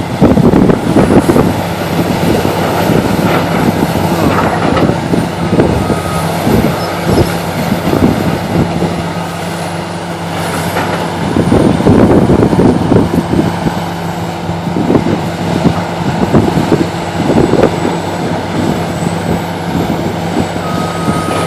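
Excavator diesel engine running under load with a high hydraulic whine that rises and falls, and bursts of crackling and knocking as it works at a big tree. A backup alarm beeps briefly a few times about six to nine seconds in.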